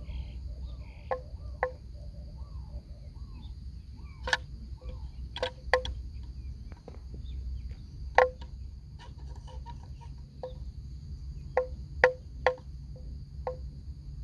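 Outdoor rural ambience: a steady high insect drone, a few short bird chirps in the first seconds, and scattered sharp clicks over a low rumble.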